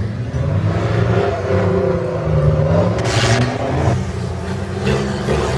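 A 4x4 trial competition vehicle's engine revving up and down as it works through the course, with a short rushing noise about three seconds in.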